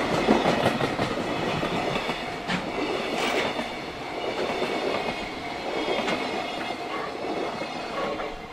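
Container flatcars of a freight train rolling past, wheels clattering over the rail joints with a few sharp clicks. The noise falls away near the end as the last wagon goes by.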